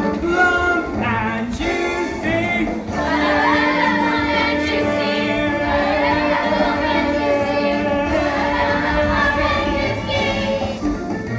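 Young stage-musical cast singing together in chorus over music, with long held notes through the middle.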